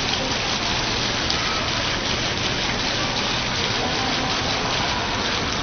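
A programmed water-curtain display: many thin streams of water falling together in a steady, even rush, like heavy rain.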